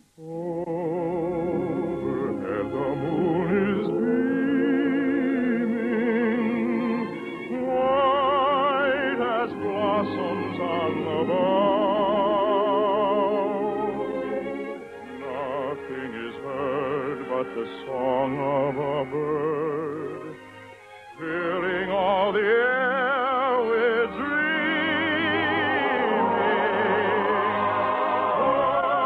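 Operatic singing with orchestral accompaniment from an old radio broadcast recording, the voices held with wide vibrato and the sound dull, with no top end. The music drops away briefly about two-thirds of the way in, then the singing swells back.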